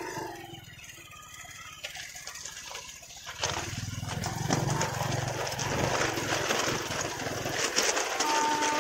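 Motorbike engine running, getting louder from about three and a half seconds in; a steady high tone starts near the end.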